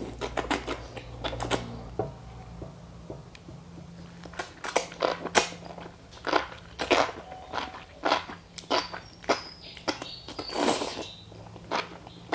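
Close-miked eating sounds: irregular crunchy bites and chewing, with clusters of sharp wet clicks and smacks. A faint steady low hum runs underneath.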